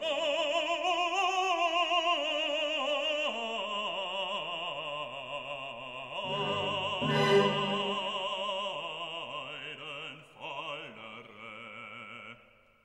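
Background music: an operatic voice holding long notes with a wide vibrato over orchestral accompaniment, fading out near the end.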